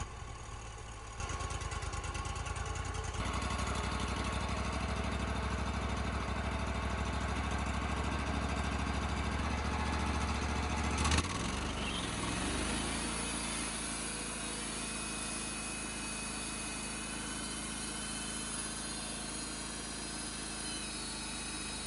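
An engine running steadily. It picks up about a second in and again about three seconds in, then after a sharp click about eleven seconds in its pitch falls and it settles back to a lower, idling speed.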